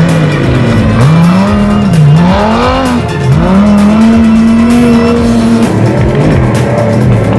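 Off-road race truck's engine revving hard, its pitch climbing and falling several times. It is held steady for a couple of seconds past the middle, then drops back.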